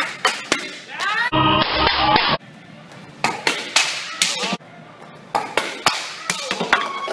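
Wooden taekwondo breaking boards cracking under kicks: a series of sharp cracks in quick runs of three or four, as a kicker spins through several held boards. Voices shout between the runs.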